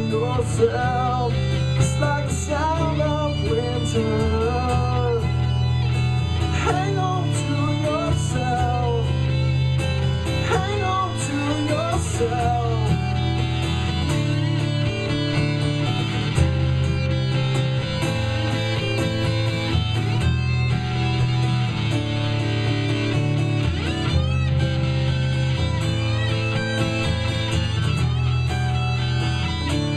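Live band playing an instrumental passage of a rock song: guitars over a steady low bass line. A wavering lead melody bends in pitch through roughly the first dozen seconds, then gives way to fuller, steadier guitar chords.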